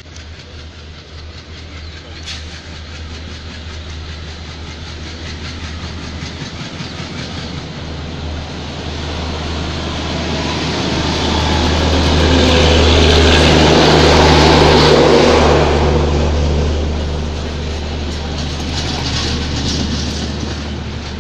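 A diesel locomotive hauls a double-decker passenger train into a station. Its engine drone builds steadily and is loudest as the locomotive passes, about two-thirds of the way through. Then the coaches roll by with a quieter rumble and wheel clatter.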